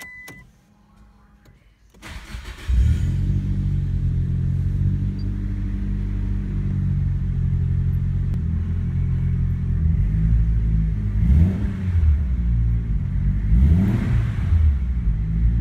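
Nissan Silvia S15's SR20DET turbo four-cylinder cranking and catching about two seconds in, then idling steadily, with two quick revs about two and a half seconds apart near the end. It is the first start after the new clutch was installed. A short beep sounds at the very start.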